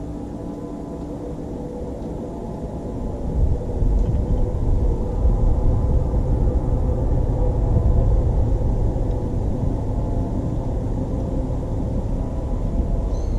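Bass boat's outboard motor running under way, a steady rumble that grows louder about three and a half seconds in as the boat picks up speed, with wind and water noise.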